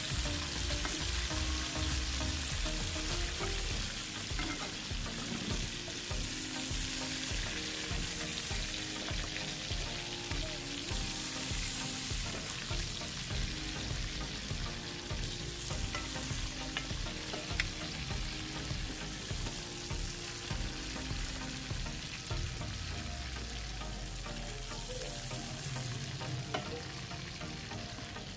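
Chicken pieces sizzling in hot ghee in an aluminium pan, the sizzle fading near the end with the flame turned off. A steel ladle scrapes through the pan as it lifts the pieces out, with a few light clinks.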